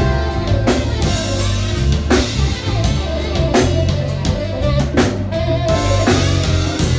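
Live music with a steady drum-kit beat and bass, and a saxophone playing held, bending melody notes over it.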